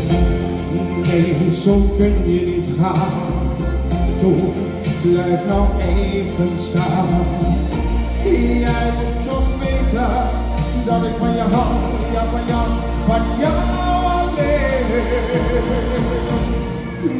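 Live band music with singing: a melody line over a steady bass and drum beat.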